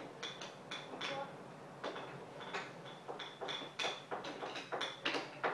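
Small hard game tiles clicking and clacking against each other and the wooden floor as they are handled and set down. The clicks are irregular, a dozen or so, some with a short bright ring.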